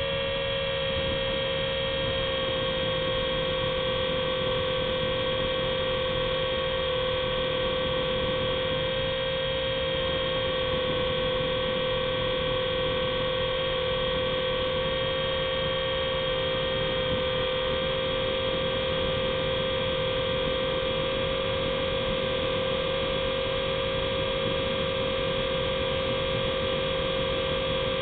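Syma S107C toy helicopter's small electric motors and coaxial rotors whining steadily, heard close up from the camera on board, the pitch wavering slightly as it flies.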